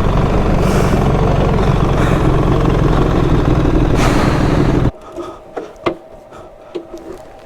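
BMW R1300GS boxer-twin motorcycle running with wind rushing over the microphone, a loud steady rumble and rush that cuts off abruptly about five seconds in. After that only a quiet background with a few light clicks.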